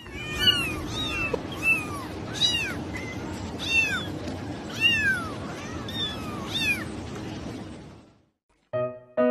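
Domestic cat meowing over and over: short meows that rise and fall in pitch, about one a second, over a steady background hiss. The meowing stops about a second and a half before the end, when piano music begins.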